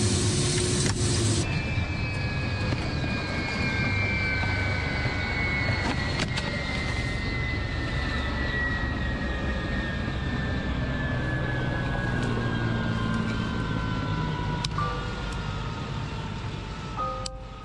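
Ka-52 helicopter's turbine engines winding down after a crash landing: a whine of several tones falling slowly in pitch over a low rumble, with a few scattered clicks. A loud rushing noise in the first second and a half cuts off suddenly, and soft piano music comes in near the end.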